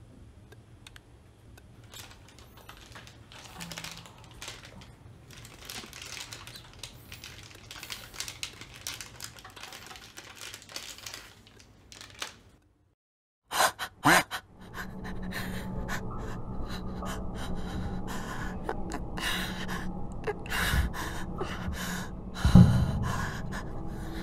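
Soundtrack of a first-person horror short: breathing and small taps and clicks, like someone using a phone, then a sudden silence of about a second. After it come two sharp sounds, then a steady low hum with a couple of heavy thumps near the end.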